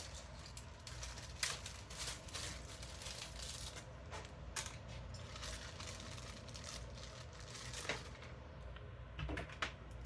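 Scattered light clicks and taps of hands handling computer parts and cables in a PC case, over a low steady hum.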